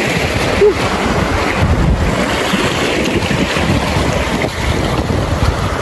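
River water rushing around a small boat running a rapid, with wind buffeting the microphone: a steady, loud rushing noise.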